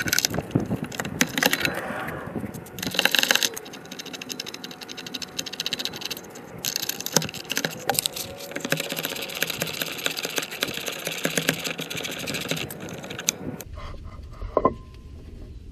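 Ratchet wrench clicking rapidly as the brake caliper bolts are undone, with metal clinks of tools and parts in between. A single metal clank with a short ring sounds about a second before the end.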